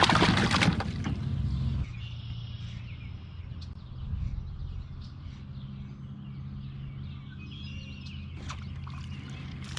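Outdoor ambience by the water: a steady low hum with a few faint bird chirps. A brief loud noisy rustle comes in the first second or two.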